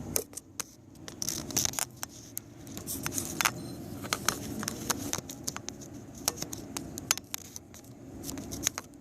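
Irregular sharp clicks, taps and light scrapes of hands handling a starter motor and its test leads, with no steady run of the motor.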